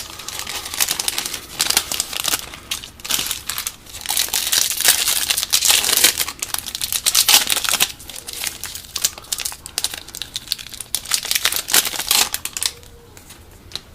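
Plastic wrapper of a 2015 Topps Football trading card pack being torn open and crinkled in the hands: a dense run of crackles that dies away shortly before the end.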